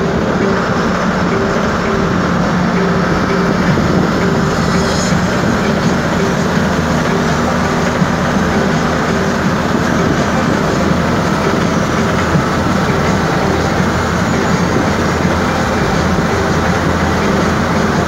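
Steady engine drone and tyre and road noise inside the cab of a large road vehicle cruising along a paved highway.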